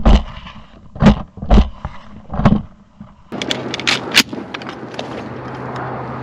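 Shotgun fired three times in the first two and a half seconds, each a loud sharp report. About three seconds in, a motor starts running with a steady low hum, most likely a boat's, and a few sharp clicks come through about a second later.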